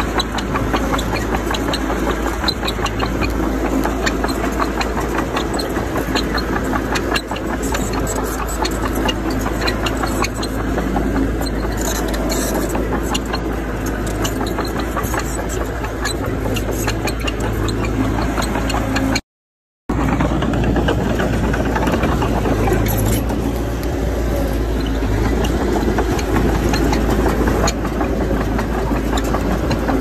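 Diesel engine of heavy earthmoving machinery running steadily, with faint clicks and rattles over it. The sound drops out completely for about half a second roughly two-thirds of the way through.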